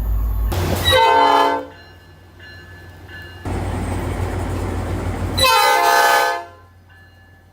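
Commuter train horns: two blasts of about a second each, one about a second in and one near the end, each a chord of several tones. Between them, abrupt cuts into steady train running noise.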